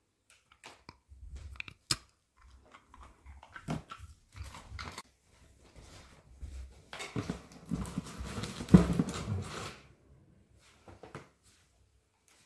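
A Border Collie chewing and crunching a dried meat treat: a run of short crunches and clicks. About seven seconds in come a few seconds of louder rustling and knocking as the dog noses into a cardboard box.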